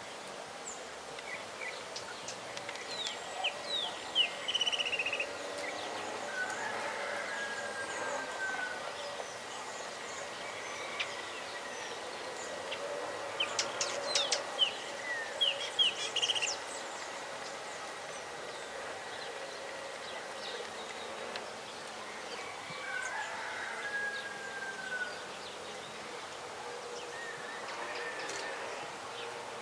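Outdoor countryside ambience: birds chirping in short clusters of quick notes, with a slurred, curving call heard twice, over a thin steady high tone like an insect drone.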